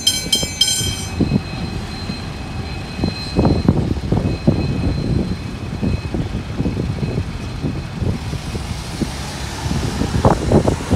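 G-class diesel-electric locomotive running light, its engine rumbling with irregular knocks from the wheels on the track. Level-crossing bells are ringing at the start and stop about a second in.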